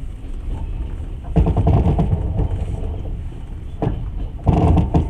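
Passenger train carriage creaking and rattling as it rolls along, with a low running rumble. It swells into two louder spells of rattling, about a second and a half in and again near the end.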